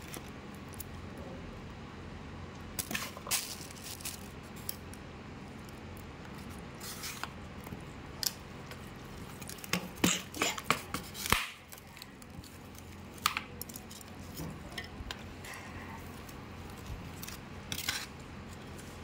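Chopsticks and a spoon clicking and knocking against a ceramic bowl as rice noodles in curry broth are stirred and lifted. The knocks come in scattered clusters, busiest about halfway through, over a steady low hum.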